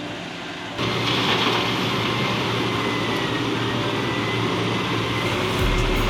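Heavy earthmoving machinery running with a steady, dense engine and working noise, which gets abruptly louder about a second in.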